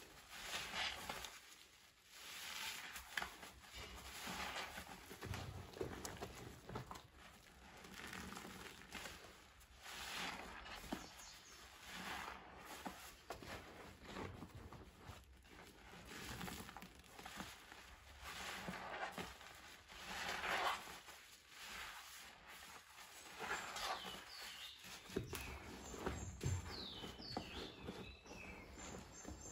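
Soapy yellow sponges squeezed and kneaded by hand in a basin of foamy water: wet squelching and fizzing suds, swelling with each squeeze every second or two. Birds chirp in the background near the end.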